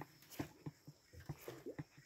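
Faint, irregular clicks and knocks from a baitcasting reel and rod being worked while retrieving a lure, with a short rising squeak about one and a half seconds in.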